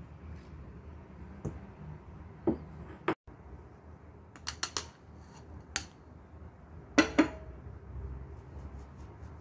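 Kitchenware knocking and clinking against a stainless steel mixing bowl while cocoa powder is sifted in through a metal mesh sieve. There are a few scattered taps, a quick run of three or four in the middle, and two louder knocks about seven seconds in.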